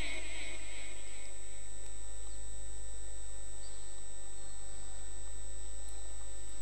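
Steady low electrical mains hum with faint hiss during a pause in the recitation. In the first second, the echoing tail of the reciter's chanted Quran recitation dies away.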